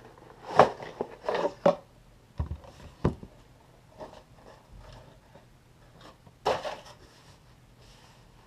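Handling noises: a string of knocks and clicks as the camera is set down and the packaging and plastic drill-bit case are handled.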